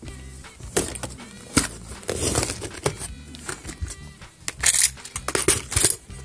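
Jewellery rattling and clinking in plastic organiser baskets as a basket is lifted and shifted in a drawer, in a series of sharp clatters. Soft background music plays underneath.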